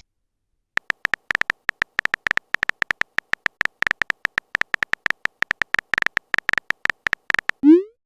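A rapid run of very short, high electronic beeps, all at one pitch, starting about three-quarters of a second in. They come unevenly at roughly eight a second.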